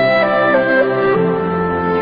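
Slow, sad-sounding instrumental background music with long held notes that step from one pitch to the next.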